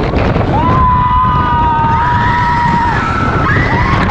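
Roller coaster riders screaming in long held cries over loud wind and rumble from the moving train.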